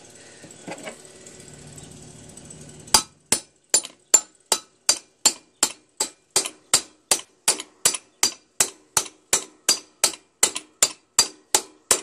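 Hammer striking a steel chisel wedged into the rusted rear wheel hub of a John Deere STX30 lawn tractor: a quick, steady series of sharp metallic strikes, about three a second, starting about three seconds in. The strikes are driving a wheel that is rusted fast to its axle.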